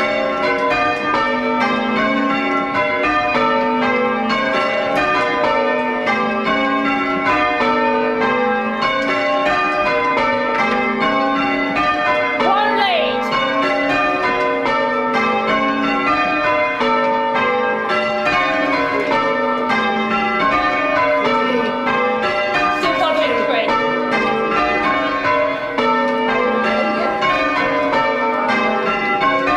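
Tower bells being rung full-circle in English change ringing: a steady, unbroken sequence of bell strikes in quick succession, heard from the ringing chamber below the bells.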